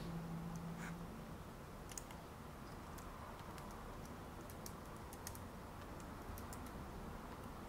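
Faint, scattered clicks of a computer keyboard and mouse, a few keystrokes at a time, over a low hum that stops about a second in.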